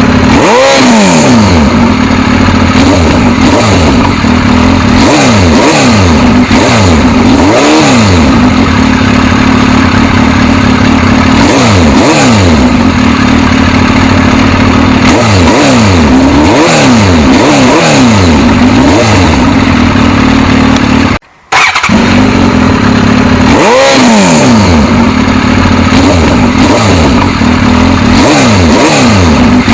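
Suzuki GSX-S1000's inline-four engine revved over and over, its pitch climbing and falling in quick blips. The sound cuts out for a moment about two-thirds of the way through, then the revving carries on.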